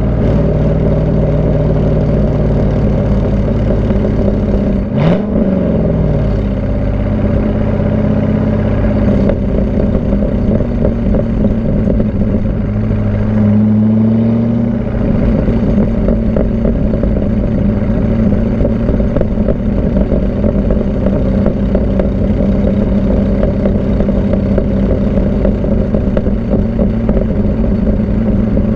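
C5 Corvette V8 running through a Borla cat-back exhaust with the catalytic converters removed from the factory mid-pipe and stock manifolds. The exhaust note is loud and steady. There is a sharp click about five seconds in with a brief rise and fall in engine pitch, and the engine pitch shifts up and down a few more times, rising again about halfway through.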